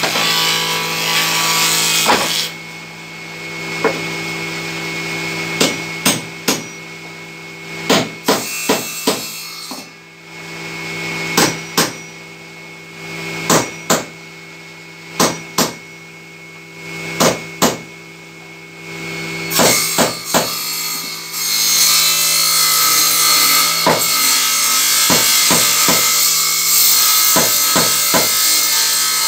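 Hammer blows on wooden boards, irregular and often in pairs or quick runs, over the steady hum of a running power tool. A power saw cuts wood at the start and again from about two-thirds of the way through, loud enough to dominate, with a few more hammer blows under it.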